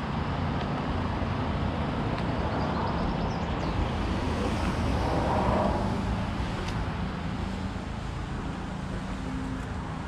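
Steady rumble of road traffic, with a slight swell about halfway through as a vehicle passes.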